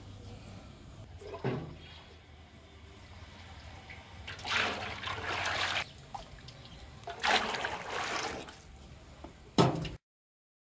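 Liquid poured from a small steel bowl, splashing in two pours of about a second and a half each, after a short splash about a second in. Near the end comes a sharp metallic knock.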